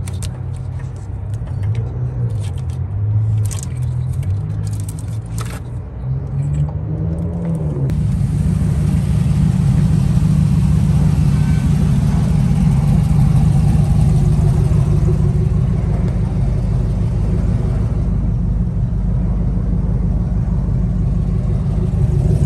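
A car engine running steadily from about eight seconds in. Before that come lower sounds that shift in pitch, with a few clicks.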